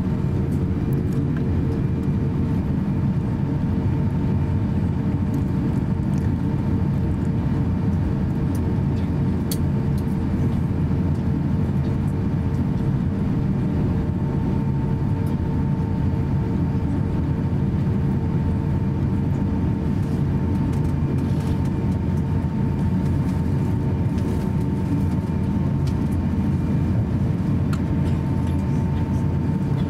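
Steady cabin noise inside an Airbus A350-900 taxiing: its Rolls-Royce Trent XWB engines at taxi power, a dense low rumble with a steady hum, and a few faint clicks.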